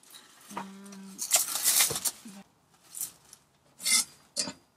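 Plastic cling wrap crinkling and rustling as it is handled and wrapped around a bamboo sushi rolling mat, in a series of short crackling bursts, the loudest and longest about a second and a half in.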